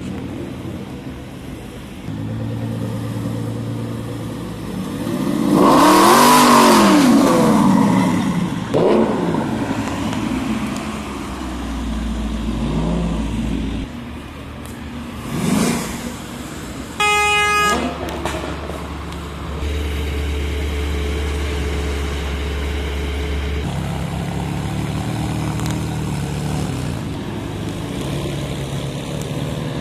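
Sports cars driving past one after another at close range. One revs loudly as it passes about six seconds in, and a car horn toots for about a second past the middle. Engines run steadily in between.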